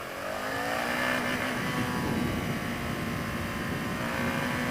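BMW G650 Xcountry's single-cylinder engine accelerating, its pitch rising over the first second and a half and then holding steady as the bike cruises, with low wind rumble on the microphone.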